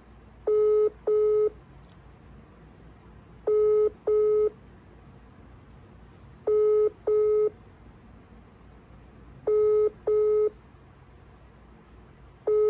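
Telephone ringback tone from a call that goes unanswered. It is a double ring, two short beeps on one steady tone, repeating about every three seconds, heard over the phone's loudspeaker.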